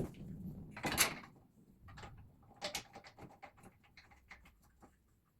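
Handling noises from assembling plastic parts and bolts: scattered small clicks, taps and rattles, with a louder rustle about a second in and another shorter one near the middle.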